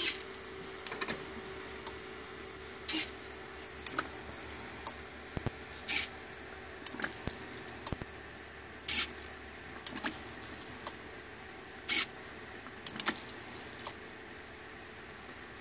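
Small hobby micro servo whirring in short bursts about every three seconds as it moves the watering spout, with a few faint clicks between the bursts.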